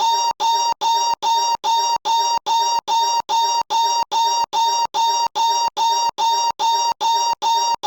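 A short, high-pitched novelty noise clip looped over and over, about three times a second. Each repeat is identical and cuts off sharply after a tiny gap, making a stuttering, scratch-like rhythm.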